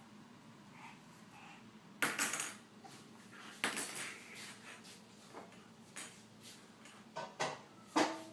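Small hard plastic toys clattering on a ceramic tile floor: a few sharp clicks and rattles, about two seconds in, near four seconds, and several more near the end.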